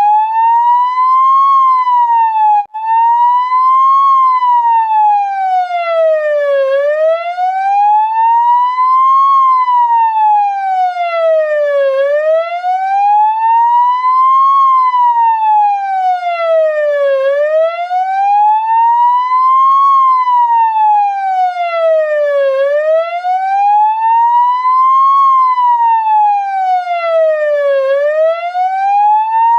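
Ambulance siren on a slow wail, its pitch rising for about two and a half seconds and falling again, over and over, with a momentary cut near the start where the sound restarts.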